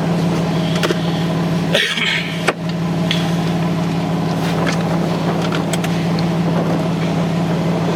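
A vehicle engine idling with a steady low hum. About two seconds in, a brief rustle ends in a sharp click.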